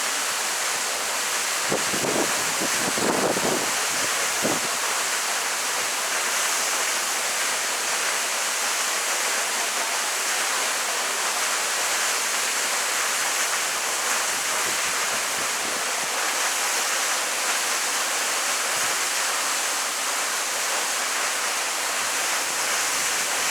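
Waterfall: falling water making a steady, even rush that does not change. A few brief lower sounds mix in during the first few seconds.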